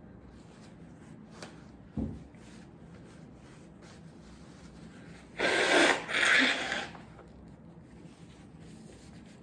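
A man blowing his nose hard into a paper tissue, two strong blasts about five and a half seconds in, with his nose running from eating extremely hot chilli. A soft knock about two seconds in, and light rustling of the tissue.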